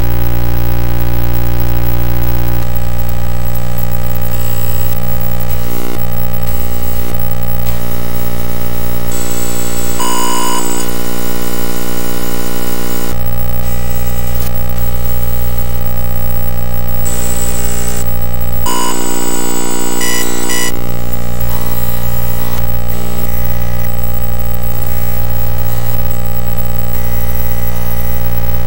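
The colour-channel video signal of a circuit-bent Sony video sketchpad, heard as audio: a loud, harsh electronic drone of many steady buzzing tones. Its timbre jumps abruptly every few seconds as the bent circuit and its oscillator inputs scramble the picture, with brighter, higher-pitched stretches about ten seconds in and again near nineteen seconds.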